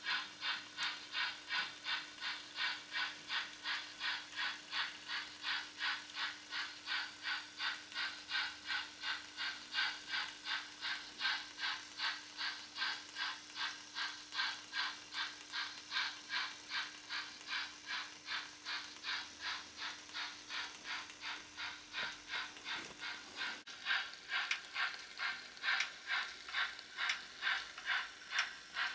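H0-scale model G 4/5 steam locomotive's exhaust chuffing steadily as it runs slowly, about two to three chuffs a second. The chuffs grow louder for the last few seconds.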